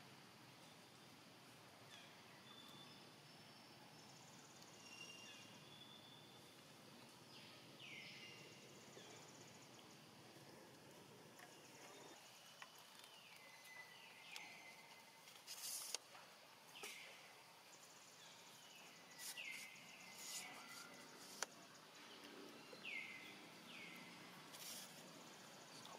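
Baby macaque's high, thin squeals, each sliding down in pitch, repeated every second or two from about seven seconds in and coming more often toward the end: a baby begging its mother to nurse. A couple of sharp clicks are heard in the second half over faint outdoor background noise.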